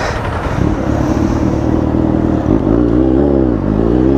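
Motorcycle engine heard from the rider's seat, running steadily and then revving up as the bike accelerates away, its pitch climbing near the end.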